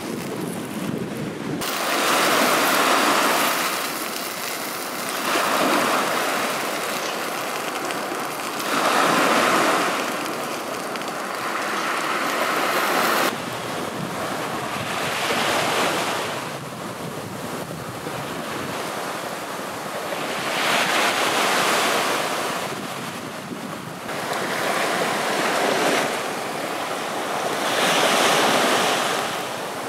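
Small waves breaking on a sandy shore, the surf swelling and falling back every three to four seconds.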